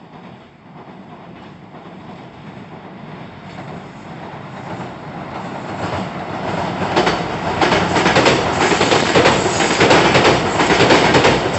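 Nankai Koya Line electric commuter train running across a steel girder railway bridge, its rumble growing steadily louder as it approaches. From about seven seconds in, its wheels clatter rhythmically over the rail joints.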